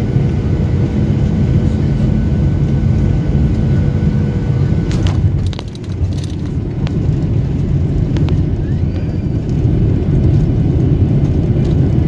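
Jet airliner cabin noise on the runway after landing: a loud low rumble of the engines and the wheels rolling. A steady whine runs through the first few seconds and stops about five seconds in, with a few knocks around that moment.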